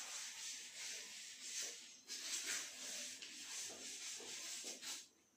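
Cloth rubbing chalk off a chalkboard in repeated wiping strokes, a dry scratchy hiss that stops just before the end.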